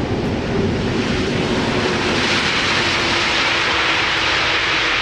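Airbus A330 passing close by on its landing approach: a steady jet-engine rush that grows louder about two seconds in, with a faint engine tone sinking slowly in pitch.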